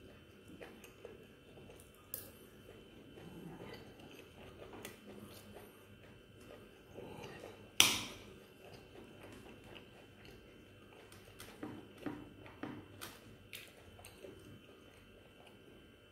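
A person chewing a mouthful of instant noodles, with a metal spoon and fork clinking against a ceramic bowl every few seconds; the loudest is a sharp clink about eight seconds in.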